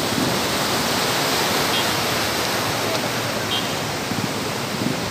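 Steady rush of a river's water flowing over a stony bed.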